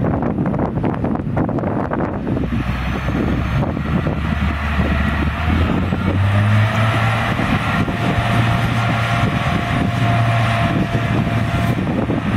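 Caterpillar 950H wheel loader's six-cylinder diesel engine pulling hard as the loader drives with a bucket of sand, its pitch stepping up about two seconds in and again around six seconds. A faint steady whine runs through the second half.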